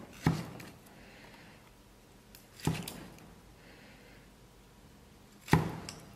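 Chinese cleaver chopping down through pork skin jelly onto a wooden chopping block: three sharp knocks about two and a half seconds apart.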